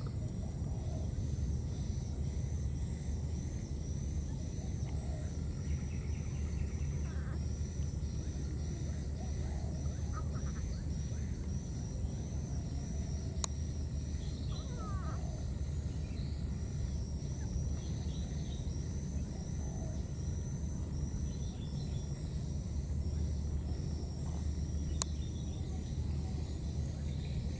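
Outdoor ambience: insects trill steadily in rapid high-pitched pulses over a low, steady rumble, with a few faint short chirping calls scattered through and two sharp clicks, one about halfway and one near the end.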